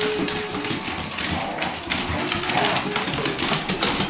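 Basset hounds romping on a hardwood floor: a busy, irregular clatter of claws and paw thumps as they scramble and chase.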